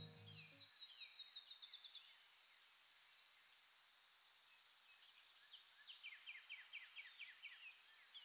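Faint rural ambience: a steady high insect drone, with a bird calling in quick runs of rapidly repeated notes, once in the first two seconds and again, lower, about six seconds in.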